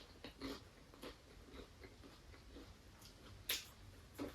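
Faint biting and chewing of a crunchy chicken taco: a string of small crisp crunches, with two louder ones about three and a half and four seconds in.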